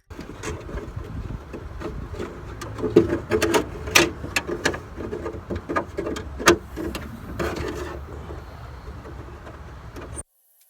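Wire scraping and rubbing inside the sheet-metal trunk lid of a BMW e36 as a coat hanger and wiring harness are worked through its wire passage, with frequent sharp clicks and knocks. It cuts off abruptly near the end.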